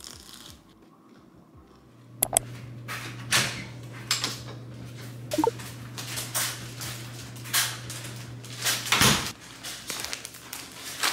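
A door lock clicks and the front door opens, then grocery bags are handled with irregular rustling and crinkling. A low steady hum runs under it until a dull thump near the end.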